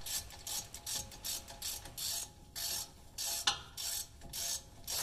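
Ratchet wrench clicking in a quick run of short back-and-forth strokes, about three a second, tightening a brake caliper bolt.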